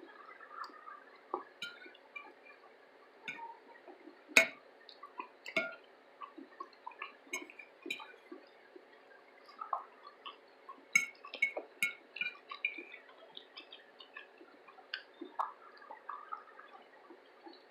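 A person eating: irregular wet clicks and smacks of chewing and mouth sounds, with a sharp click about four seconds in and a cluster of clicks around eleven seconds.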